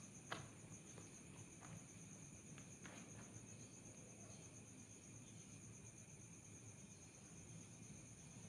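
Faint, steady chorus of night insects, cricket-like trilling high in pitch, with a few faint clicks in the first three seconds.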